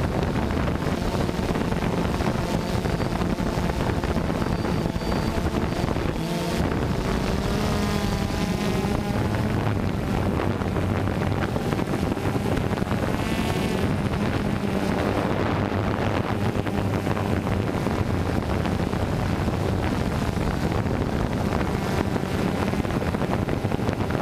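DJI Phantom 2 quadcopter's four electric motors and propellers buzzing steadily in flight, close to the microphone on board, the pitch shifting up and down as the throttle changes. Wind rushes over the microphone.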